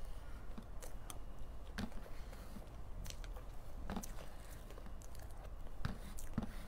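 Close-miked chewing and wet mouth sounds of someone eating soft cream cake, with scattered light clicks and scrapes of a spoon on the cake board.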